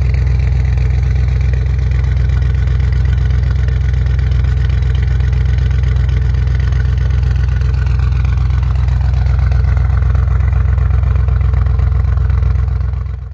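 Audi RS6 Avant C8's twin-turbo V8 running steadily through a Capristo exhaust with the particulate filter (OPF) removed, a deep even drone; the sound cuts off abruptly near the end.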